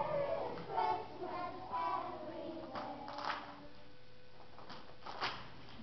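A class of young children singing together on stage, their voices falling away about halfway through, with a few short hissy sounds after that.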